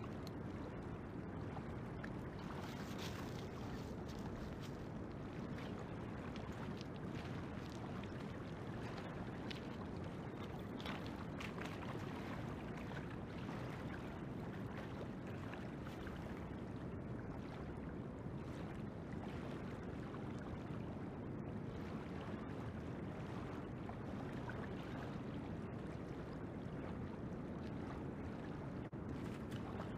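Steady rush of river water flowing past, an even noise with no distinct events.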